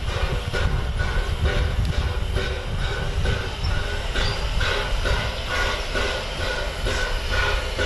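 Peppercorn A1 Pacific steam locomotive 60163 Tornado working slowly, its exhaust beating in even chuffs about two and a half times a second over a low rumble.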